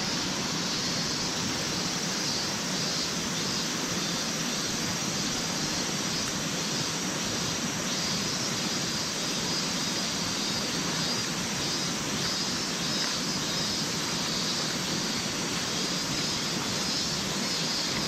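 River water rushing steadily over stones, an even, unbroken hiss.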